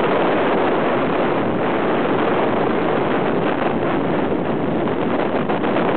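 Ultralight aircraft in flight: wind rushing over the microphone mixed with engine noise, a steady loud noise that does not change.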